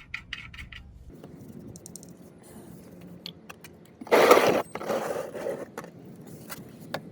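Ratchet wrench clicking quickly as the 13mm oil drain plug is run in, stopping about a second in. Faint clicks and handling noise follow, with a short, louder scraping rasp about four seconds in.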